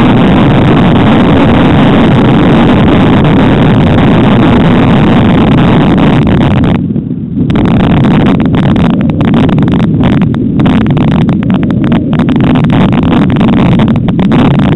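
Wind buffeting the microphone of a camera carried on a moving mountain bike: a loud, steady rumble. It dips briefly about seven seconds in and turns choppy after that.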